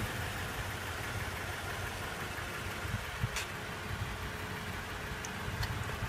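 Steady low rumble of a vehicle engine idling, with a couple of faint ticks.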